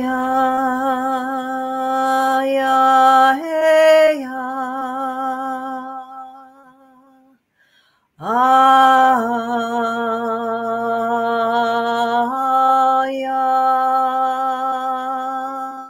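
A woman chanting a soul voice blessing in long held notes on one steady pitch. There are two long phrases: the first fades out about seven seconds in, and the second begins after a pause of about a second.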